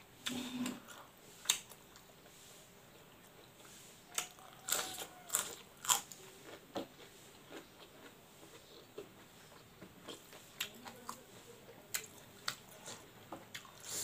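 Close-up sounds of a person biting into and chewing smoked pork: irregular wet mouth clicks and smacks, most frequent around the middle.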